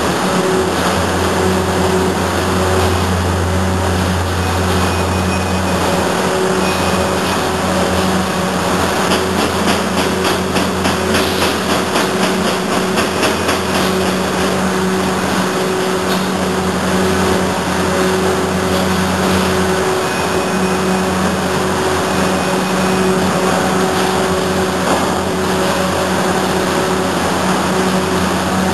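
Five-ply corrugated board production line running: a steady industrial machine hum with continuous mechanical noise, and a stretch of rapid clicking in the middle.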